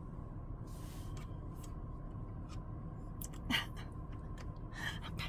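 Quiet car cabin with a steady low hum, a few soft clicks from dashboard buttons being pressed, and handling noises, with a brief louder one about three and a half seconds in.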